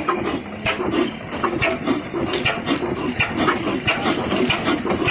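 Old 18 HP stationary diesel engine running slowly, with a steady beat of knocks about two to three a second.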